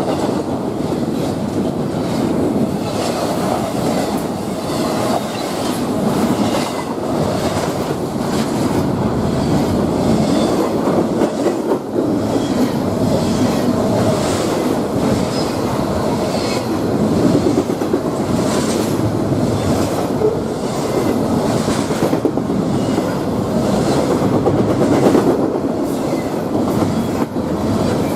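Railroad cars of a passing train rolling steadily by, a continuous rumble with repeated clacks of the wheels going over rail joints.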